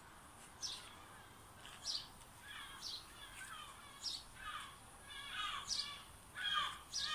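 Gulls calling again and again, short harsh downward calls every second or so, some in quick runs, louder near the end.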